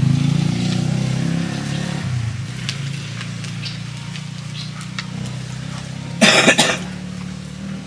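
A small engine hums steadily in the background and fades over the first couple of seconds, with faint clicks of eating. About six seconds in, someone coughs loudly.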